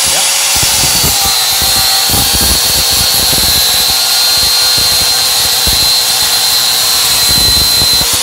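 Corded angle grinder running at full speed with its disc cutting through a rusted steel sway bar end link, a steady high whine over an uneven grinding rasp. The motor starts to wind down at the very end.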